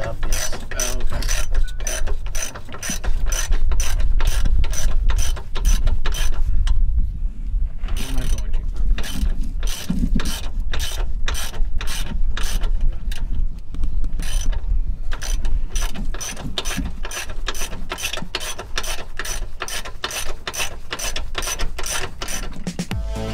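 Hand ratchet wrench clicking as it is swung back and forth, undoing bolts on an Infiniti G35's rear differential. The clicks come steadily, about three or four a second, with short pauses about a third and two-thirds of the way through.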